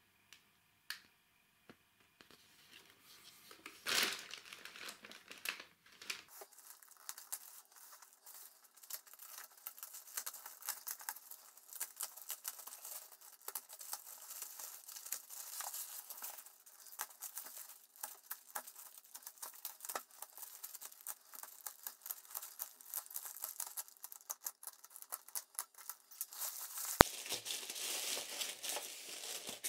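Plastic postal wrapping on a parcel being torn open and crumpled by hand, giving a long run of crackling rustles and tears. There is one sharp click near the end.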